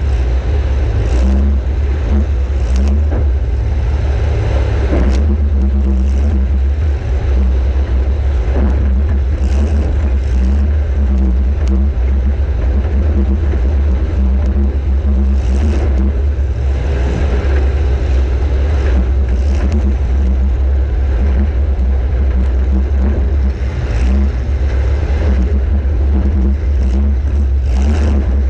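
Compact demolition derby car's engine running hard under a heavy low rumble, with a sharp knock every few seconds.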